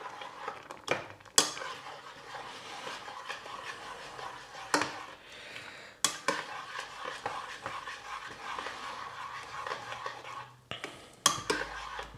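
A spoon stirring quinoa cooked with milk, honey, cinnamon and applesauce in a pot, scraping steadily, with a few sharp clinks against the pot.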